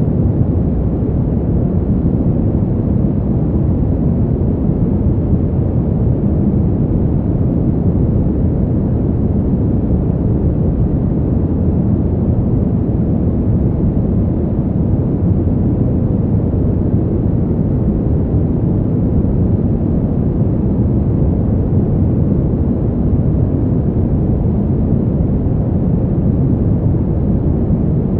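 Steady brown noise: a deep, even hiss weighted to the low end, with no changes or events.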